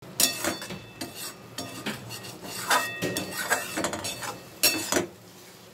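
Metal spatula stirring and scraping a thick prawn-head paste mixture around an aluminium kadai, in irregular strokes against the pan. The scraping stops about five seconds in.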